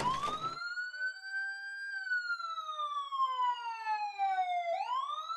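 Police car siren wailing: a slow rise, a long slow fall in pitch, then a quick rise again near the end. A noisy rush carried over from before cuts off about half a second in.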